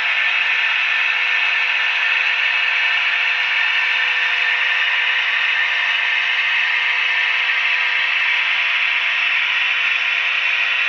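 Model trains running on the layout's track: a steady mechanical whir and rattle with a constant hum, unchanged throughout.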